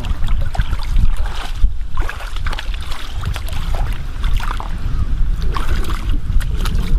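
Wind buffeting the microphone in a steady low rumble, with scattered clicks and scrapes from steps and handling on the wet rocks of the shore.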